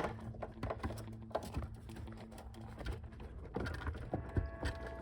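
Irregular light plastic clicks and knocks as a motorcycle's LED integrated tail-light unit is handled and wiggled into its latch on the rear of the bike.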